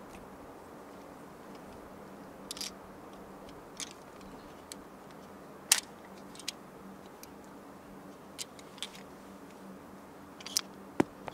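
Scattered light, sharp clicks and taps, about eight of them at uneven intervals, the loudest about halfway through, over a faint steady hum.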